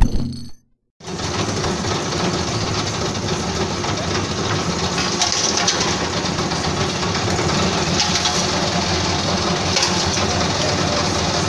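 Nutmeg peeling machine's motor running steadily, with the machine empty because no nutmegs have been fed in yet. It comes in about a second in, after a short silence.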